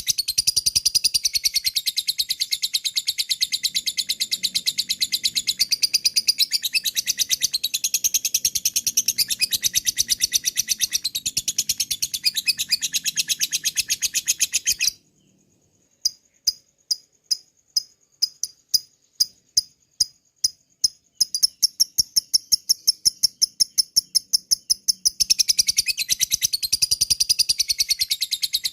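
Lovebird 'ngekek': a long, rapid chattering run of sharp, high chips, the excited call that lovebirds give toward a rival. About halfway it breaks off for a moment, then comes back as a string of separate chips a few per second, and a few seconds later the fast chatter resumes.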